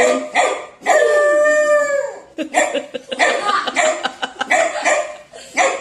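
A person imitating a dog with their voice: one long howl about a second in, then a run of short, choppy bark-like calls.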